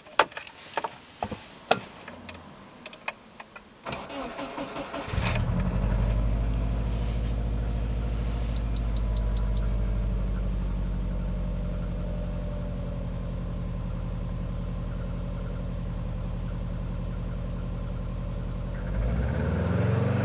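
A car engine heard from inside the cabin. After a few clicks it is cranked and catches about five seconds in, then runs at a steady idle. Three short high beeps sound about nine seconds in, and the running sound swells near the end. The recording was made to capture an abnormal noise from the interior, but which sound is the fault is not shown.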